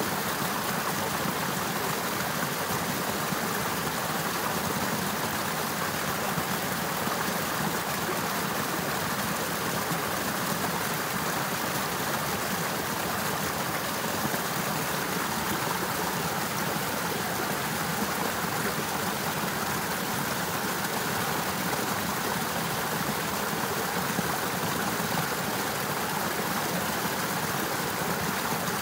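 Water of a partly frozen, icicle-hung river running in a steady, even rush that does not change.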